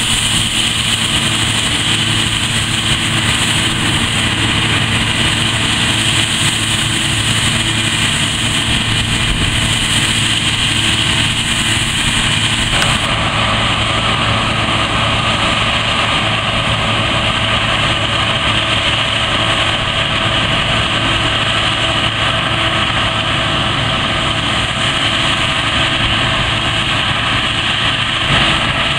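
Claas Lexion 460 combine harvester running under load while cutting and threshing grain: a steady engine and machinery drone with humming tones. About halfway through, the high hiss fades and a mid-pitched hum comes forward.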